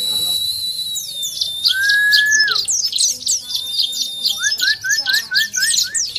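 Zosterops white-eye (pleci) singing: a rapid, high twittering of chirps, with a long level whistle about two seconds in and a quick run of about six short rising notes near the end.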